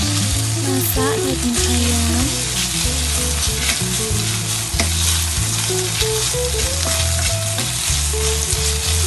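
Chicken pieces and sliced red chillies sizzling in hot oil in a stainless steel frying pan, stirred with a wooden spatula. The sizzle starts sharply as the food goes into the oil and holds steady, with background music underneath.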